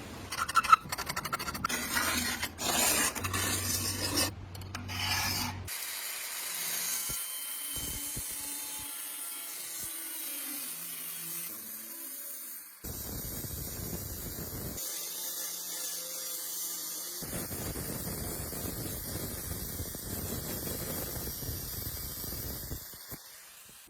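Hand rubbing and scraping on parts being restored, a run of rasping strokes that gives way to a steadier rubbing noise, with the sound changing abruptly at several cuts.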